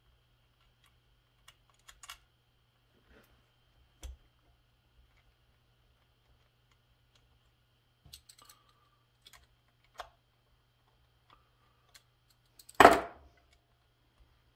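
Parts of a McCulloch Super Pro 70 chainsaw being handled and fitted together by hand: scattered light clicks and taps of plastic and metal, with one louder clatter near the end.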